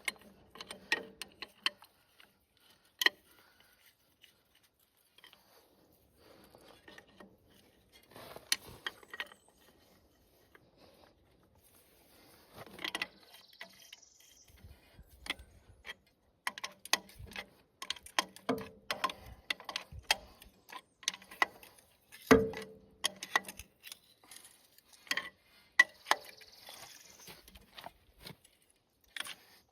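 Irregular metallic clicks, clinks and knocks of hand tools and hydraulic hose fittings being handled and worked, with a few brief rustles in between.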